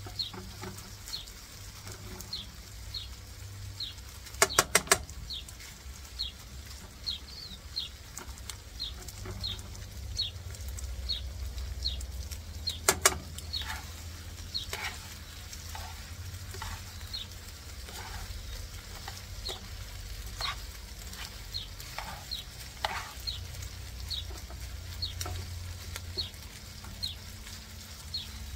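Chicken tocino sizzling in a frying pan as it is stirred and turned with metal tongs. The tongs clack sharply against the pan twice, about four seconds in and near the middle. A bird chirps over and over in the background with a short high note about once a second.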